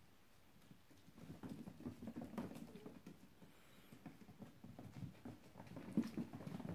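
Puppies' paws pattering and scrabbling on a bare wooden floor as they play: many quick, irregular taps. The taps are busiest about a second and a half in and again near the end.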